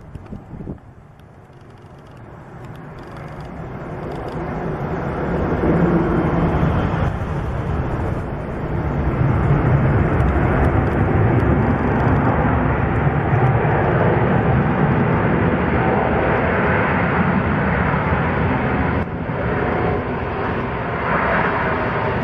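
Boeing 777-300ER's GE90-115B turbofan engines: a jet roar that builds over the first several seconds and then stays loud and steady as the airliner rolls out on the runway after touchdown.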